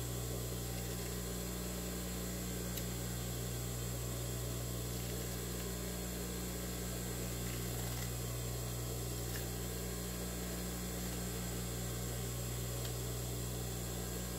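Large fabric scissors snipping through cloth, a few faint cuts scattered over a steady electrical hum.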